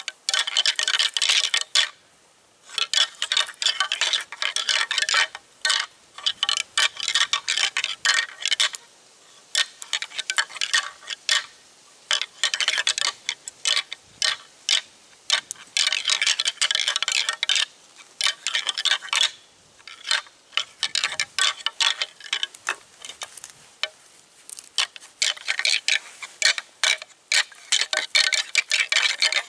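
A pair of deer antlers being rattled together: bursts of clacking and grinding a second or two long, broken by short pauses, repeated many times. This is antler rattling, a hunter's call that imitates two bucks sparring to draw a buck in.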